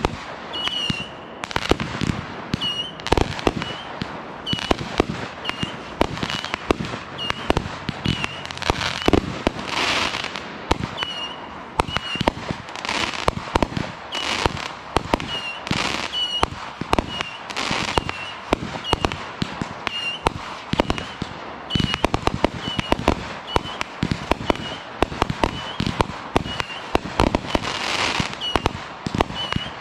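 Aerial fireworks going off in rapid succession: many sharp bangs of bursting shells, with crackling stretches a few times. A short high chirp repeats about once a second behind them.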